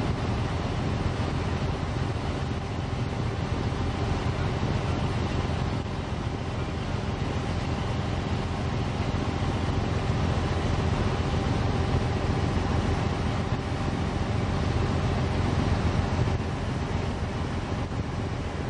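Steady drone of a river cruise boat underway: a low engine rumble with a faint steady hum, under a constant rushing noise.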